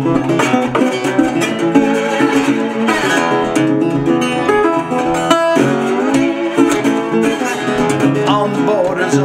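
Solo acoustic guitar playing an instrumental passage, a mix of picked notes and strummed chords, with no singing.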